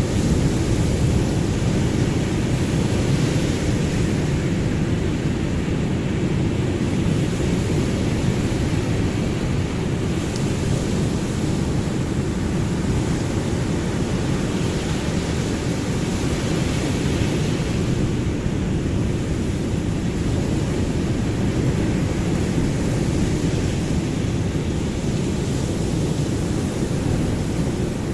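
Ocean surf: a steady, deep rush of waves with no single breaker standing out.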